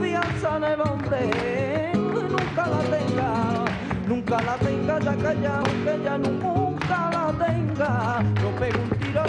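Flamenco song with a singer's wavering, ornamented voice over guitar. Frequent sharp percussive strikes run through it.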